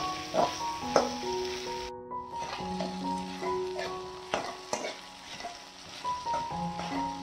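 Chopped okra sizzling in oil in a pan while being stirred hard with a spoon, which scrapes against the pan in irregular strokes, the loudest about a second in. The sizzle drops out briefly about two seconds in. Soft background music plays underneath.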